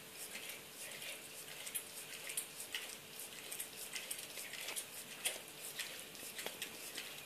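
Bull terrier licking a cat's fur: quick, irregular wet clicks and smacks of the tongue, several a second.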